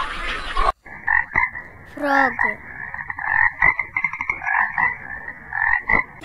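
Frog croaking in a run of short repeated calls, about two a second. Before that, a snatch of another animal sound cuts off abruptly under a second in.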